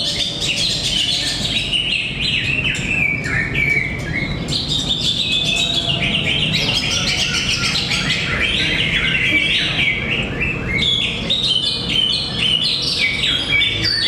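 Caged green leafbirds (cucak ijo) singing in competition, several birds at once in a dense, unbroken run of quick, varied whistled phrases.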